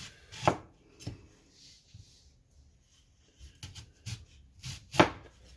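Kitchen knife slicing through an onion into rings, striking the cutting board with a handful of sharp knocks, the loudest about five seconds in.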